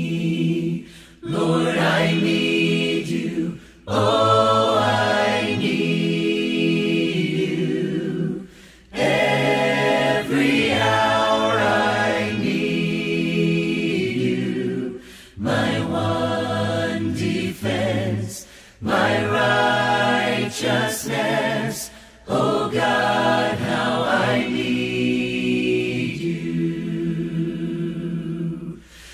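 A cappella vocal group singing a worship song in harmony with no instruments, in sung phrases a few seconds long separated by short breaths.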